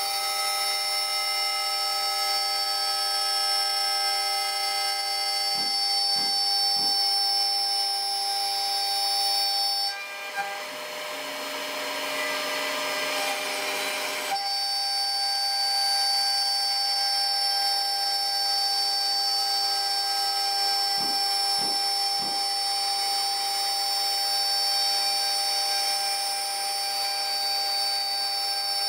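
An 800 W CNC router spindle running with a steady, many-toned high whine as the machine cuts into a clamped wooden board. About ten seconds in, the whine gives way to a rougher hiss for roughly four seconds before returning.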